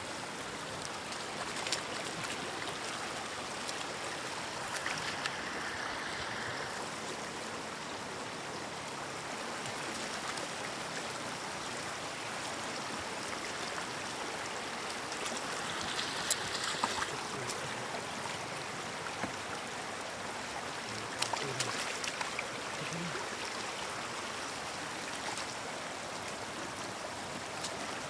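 Shallow floodwater running steadily over stones, with a few brief splashes from rubber boots wading through it.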